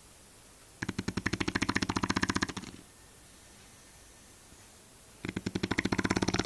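Shar-pei dog snoring: two long, rattling snores, each a rapid train of flutters lasting about two seconds. The first starts about a second in; the second starts near the end.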